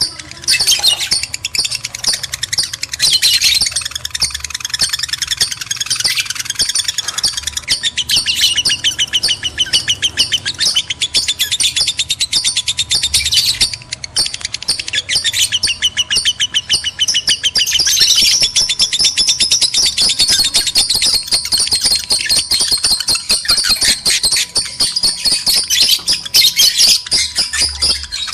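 Lovebirds chattering in breeding condition: a fast, continuous stream of high, shrill chirps and trills, with a short lull about halfway through.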